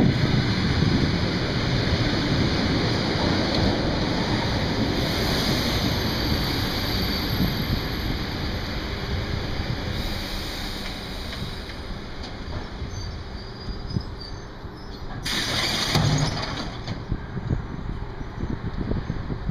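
ET2M electric multiple unit rolling in along the platform and slowing to a stop, its rumble fading. About fifteen seconds in comes a loud burst of compressed-air hiss with a thump, as the train stands and its doors open.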